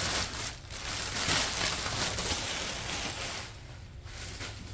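Clear plastic bag rustling and crinkling as it is pulled off by hand, fading away about three and a half seconds in.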